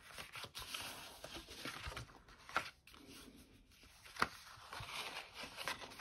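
Card stock being handled and folded, with faint paper rustling and a few light taps.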